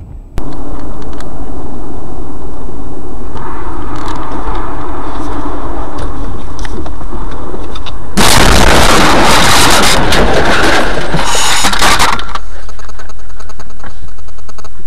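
Overloaded, distorted dashcam audio from inside a car: a steady clipped rumble, then about eight seconds in a loud crash lasting around four seconds as a large vehicle collides with the car.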